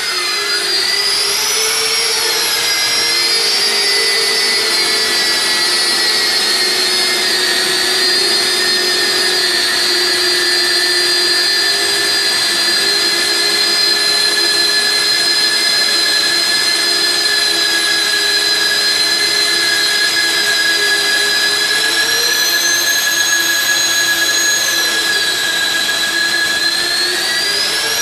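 Magnetic-base drill with automatic feed (PRO 36 AUTO) running under load, its motor and gearbox giving a steady high whine as an annular cutter bores into steel. The pitch sags as the cutter bites near the start, holds steady, then climbs again a few seconds before the end as the load comes off.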